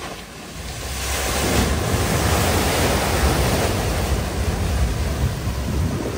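Floodwater surging and splashing as a vehicle ploughs through a flooded ford. The rush swells about a second in and eases off near the end.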